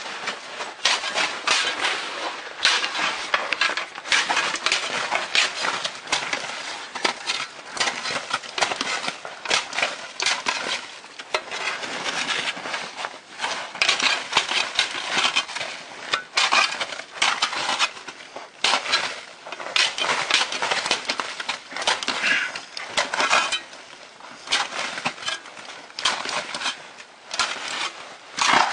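Hand saw for aerated-concrete blocks cutting and scraping through hard old snow and ice, in rapid, uneven strokes with gritty crunches and metallic chinks, a few strokes a second.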